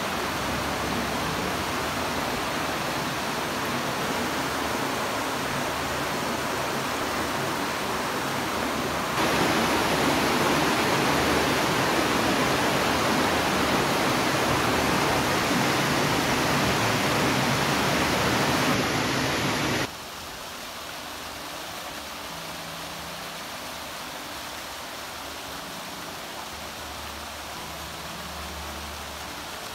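Fountain jets splashing into a stone garden water channel, with the water rushing along it as a steady hiss. The hiss jumps louder about nine seconds in, then drops suddenly to a much softer, quieter hiss about twenty seconds in.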